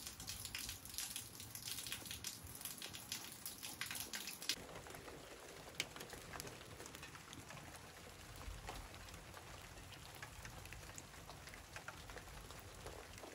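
Steady rain falling, with many drops pattering on hard surfaces. About four and a half seconds in, the drop ticks thin out and the rain settles to a softer, even hiss.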